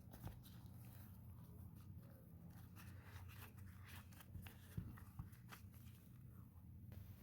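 Near silence, with faint scattered soft clicks and ticks from mashed potato, cheese and green onion mixture being mixed in a bowl.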